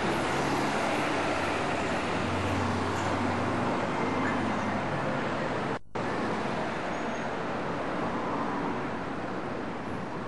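Steady street traffic noise, with the sound cutting out for a split second a little before six seconds in.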